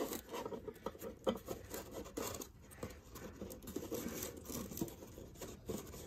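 Cardboard box being handled while short copper tubes are pushed through holes in its sides: a string of small irregular scrapes, rustles and clicks of cardboard and metal tubing.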